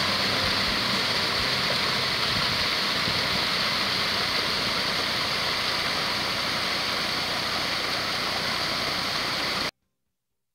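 Small waterfall pouring over limestone into a canyon pool: a steady rush of falling water that cuts off suddenly near the end.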